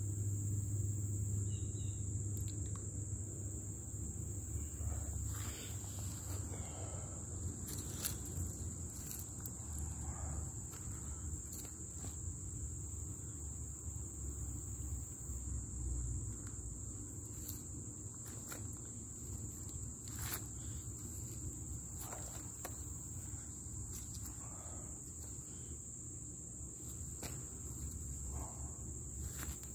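A steady high-pitched insect drone, like crickets, running without a break. Scattered faint clicks and a low rumble lie beneath it.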